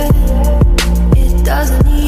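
Background music: a rock song with a steady drum beat, about two hits a second, under sustained melodic lines.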